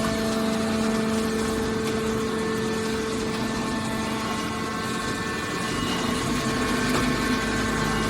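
Hydraulic scrap metal baler running, with a steady machine hum from its pump and motor.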